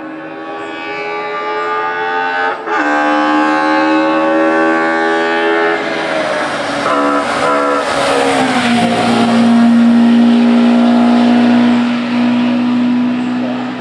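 Hillclimb race car engine under full throttle, revs climbing with a brief gap for a gear change about two and a half seconds in, then climbing again. Past the middle the engine note drops and holds steady while it is at its loudest.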